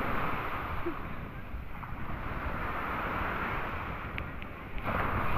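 Surf breaking and washing in the shallows, a steady hiss of foaming water with wind rumbling on the microphone; a louder wave surges in near the end.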